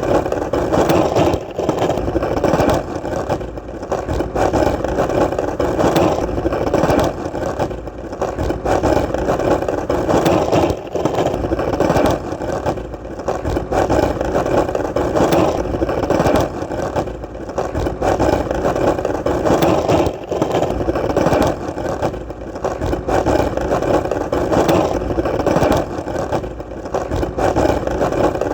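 Skateboard wheels rolling steadily over hard ground: a continuous rolling noise with short, irregular dips every couple of seconds.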